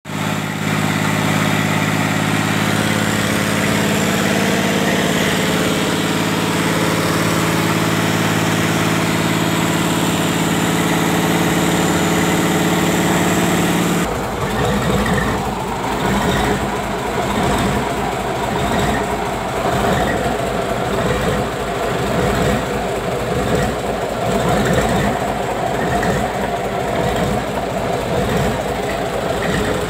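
Mitsubishi 6D40 six-cylinder diesel engine, coupled to an HC135 marine gearbox, running on a stand with a steady, even hum. About halfway through it cuts to a rougher, clattering run with a fast knocking rhythm.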